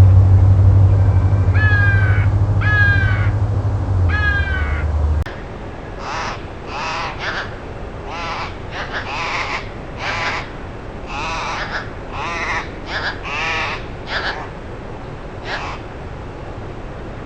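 Bird calls: three calls over a low steady hum, then, after the hum cuts off about five seconds in, a run of about a dozen more calls in quick succession.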